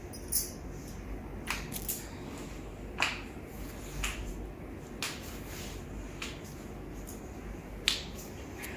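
Sharp clicks and pops, roughly one a second, from joints being worked during chiropractic manipulation. The loudest come near the start, about three seconds in, and near the end.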